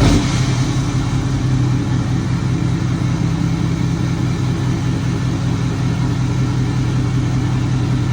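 Ford F-250 Super Duty diesel engine idling steadily.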